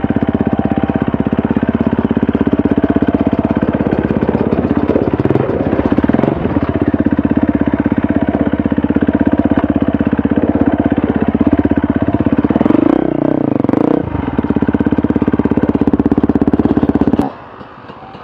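Dirt bike engine running under the rider, a steady loud drone whose pitch shifts as the throttle changes about five and thirteen seconds in. It cuts off abruptly about seventeen seconds in.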